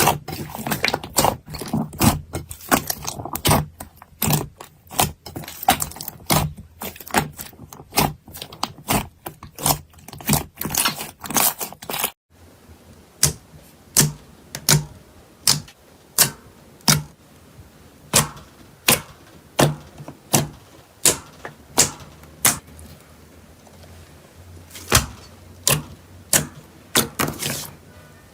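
Slime being pressed and poked by hand, giving sharp sticky clicks and pops: a rapid run of them, then after a cut about twelve seconds in, slower separate pops about one or two a second.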